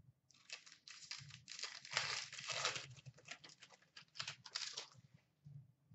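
A trading-card pack's wrapper crinkling and tearing as it is opened by hand. The crackling comes in an irregular run and stops about five seconds in.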